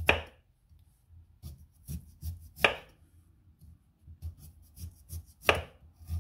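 Kitchen knife peeling a raw sweet potato: a run of short scraping cuts as strips of skin are sliced off, with four louder strokes about a second and a half to three seconds apart.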